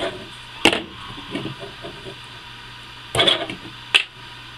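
Sharp metal clicks and taps of pliers and small steel parts being handled on a tabletop while pins are worked out of a Daisy 880 air rifle's trigger assembly: one click under a second in, a short cluster about three seconds in, and another sharp click just after, over a faint steady hum.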